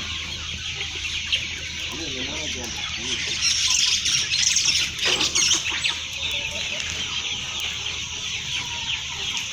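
A flock of kienyeji chickens clucking and calling in a dense, overlapping chatter, louder for a couple of seconds around the middle, over a steady low hum.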